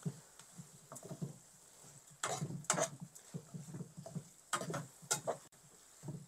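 Spatula stirring chicken pieces through a thick, wet masala in a frying pan: irregular scraping and squelching strokes, the strongest about two seconds in and again near five seconds.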